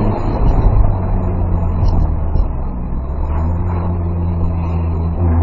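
Tow truck engine running with road noise, a steady low hum heard from inside the moving cab; the engine note shifts slightly about three seconds in.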